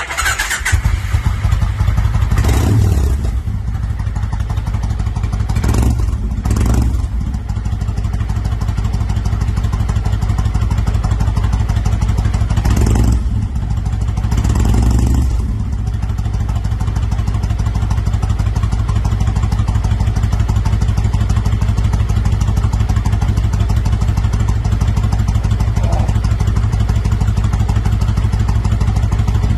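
1999 Kawasaki Vulcan Nomad 1500's V-twin engine firing up and running, with several short throttle blips in the first fifteen seconds, then settling into a steady, even idle.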